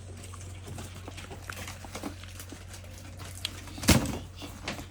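Scattered small knocks and clicks over a steady low hum, with one loud thump about four seconds in.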